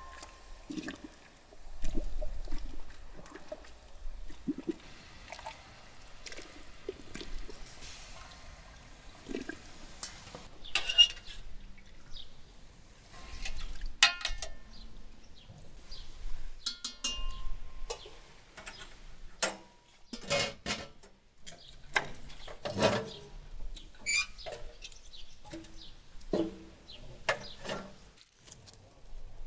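Water splashing and sloshing as whole raw chickens are lowered into a large pot of seasoned water, with scattered clinks and knocks of a wire skimmer against the enamel pot and of metal cookware.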